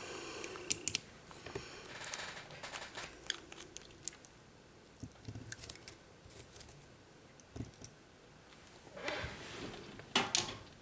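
Scattered small clicks and taps of nail-art tools and gel polish bottles being handled and set down on a desk, with a couple of brief louder rustles near the end.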